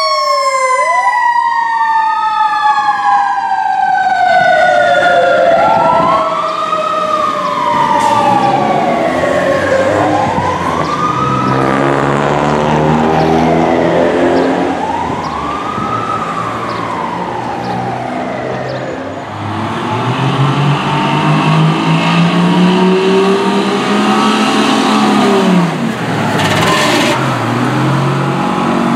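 Fire truck siren wailing up and down, with a second siren tone sliding down in the first few seconds, fading as the ladder truck drives away. Then a fire engine's diesel revs up as it accelerates away close by, with a brief hiss near the end.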